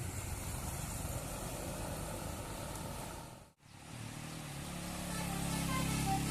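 Road traffic passing, cut off abruptly a little past halfway. Then a bus engine drones and grows louder as the bus approaches on the climb, and a telolet musical horn begins playing short tones near the end.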